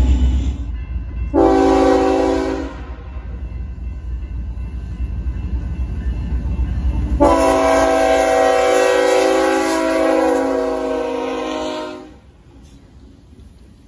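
BNSF diesel freight locomotive sounding its air horn as it approaches the grade crossing: a short blast, then a long blast of about five seconds that cuts off near the end. The quieter rumble of the train rolling past follows.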